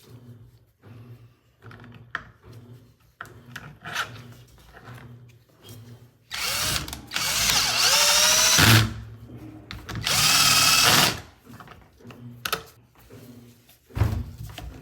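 Small handheld electric power tool run in two bursts of about two seconds each, its motor pitch rising as it spins up. Light clicks and handling knocks sound around them.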